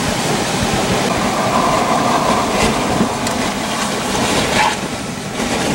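Strong storm wind rushing over the microphone in a loud, steady roar, with a few brief crackles of buffeting around the middle and near the end.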